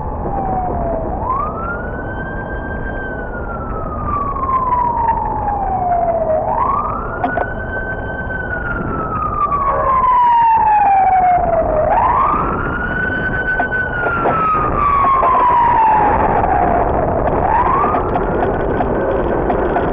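An emergency vehicle siren wailing in a slow cycle: each call sweeps up quickly, holds briefly at the top, then slides slowly down, four times over. Under it runs the steady rumble of city traffic.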